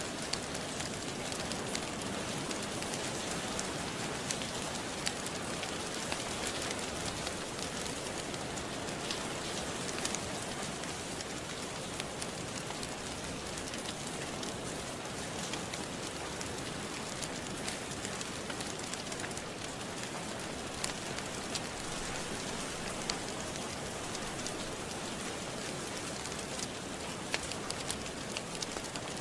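Steady rain, with the scattered crackles of a fireplace fire popping over it now and then.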